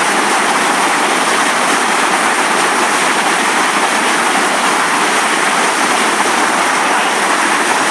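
Loud, steady rush of river white water pouring and churning over rocks.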